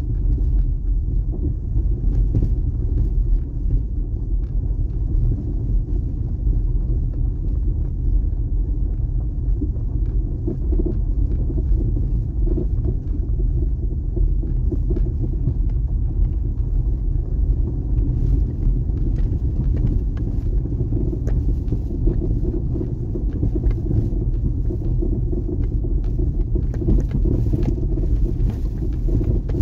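Steady low rumble of a vehicle driving: engine and road noise as heard from inside it, with faint scattered rattles.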